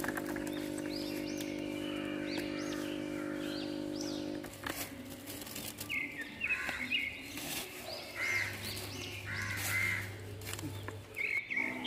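Birds calling outdoors, with repeated short chirps and crow caws, over a steady low hum that stops about four and a half seconds in.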